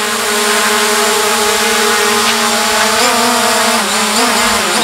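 Small quadcopter drone's propellers buzzing steadily while it hovers, the pitch wavering and sagging from about three seconds in as the drone is caught by hand.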